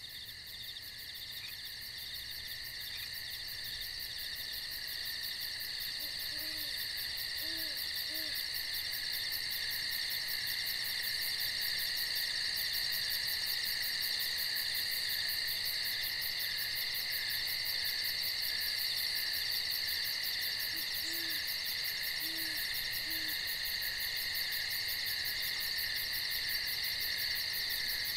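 A steady night chorus of crickets and other insects with fast high trilling, growing louder over the first several seconds. Faintly beneath it, an owl hoots in two series of three low hoots, about a quarter of the way in and again past the middle.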